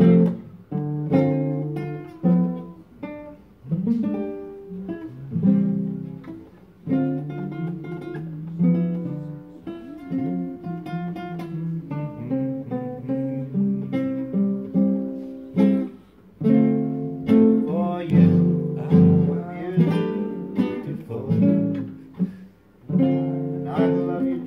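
Acoustic guitar played solo: strummed and picked chords at a slow, gentle pace.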